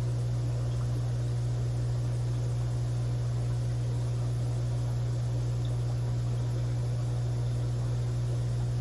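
Steady low electrical hum from running aquarium equipment, with a faint even hiss underneath and no change in pitch or level.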